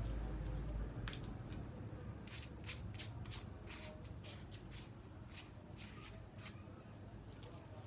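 Faint rustling and a run of light clicks from a small lavalier microphone, its clip and its cable being handled. The clicks come quickly for a few seconds in the middle.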